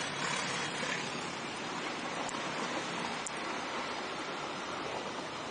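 Steady rushing wind and road noise on a moving vehicle, with a couple of faint ticks in the middle.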